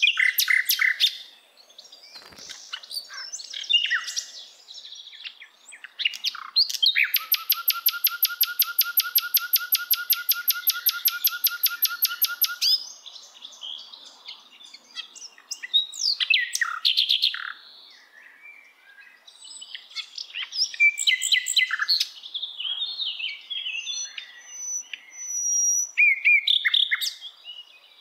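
A songbird singing: quick varied chirps and twitters throughout, with a long, even, rapid trill of about seven notes a second from about seven seconds in to nearly thirteen seconds.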